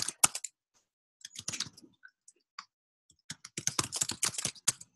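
Typing on a computer keyboard: a few quick keystrokes at the start, a short run about a second and a half in, and a longer, faster run of keystrokes from about three and a half seconds in.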